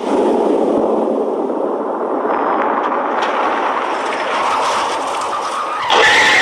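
Cartoon car sound effect: a steady rushing, rumbling vehicle noise. About six seconds in it turns suddenly louder and brighter, with a falling sweep in pitch.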